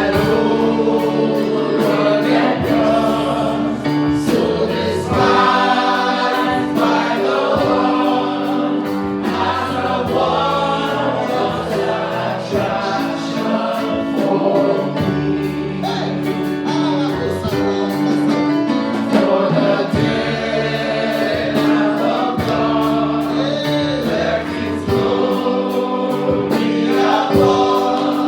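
Gospel choir singing a worship song over instrumental accompaniment with a steady beat.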